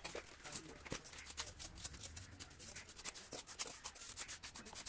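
Steel mason's trowel scraping and spreading cement mortar over brickwork: a rapid, irregular run of short scrapes and clicks.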